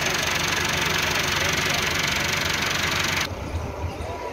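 Belarus 510 tractor's diesel engine running steadily close by, with the potato planter hitched behind. It cuts off abruptly about three seconds in, leaving a quieter, more distant engine sound.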